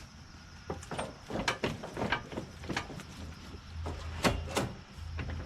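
Irregular clicks, clunks and light rattles of metal and plastic parts being handled on a lawn tractor, loudest about four seconds in, over a steady low hum.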